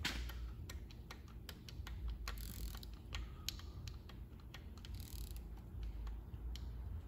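Socket ratchet clicking in short, uneven runs as it turns a rocker-arm adjusting nut on a small-block Chevy 350, taking the intake valve toward zero lash.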